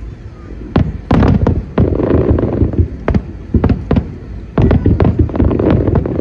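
Aerial fireworks shells bursting: many sharp bangs and booms in quick, irregular succession.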